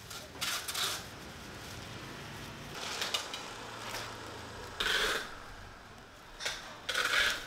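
Thin plastic carrier bags rustling and crinkling in several short bursts as they are handled.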